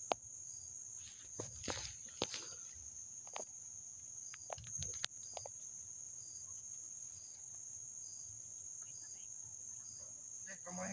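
Insects droning in a steady high-pitched trill, with a fainter chirp repeating at an even pace. A few sharp snaps and rustles in the first five seconds, from movement through the undergrowth.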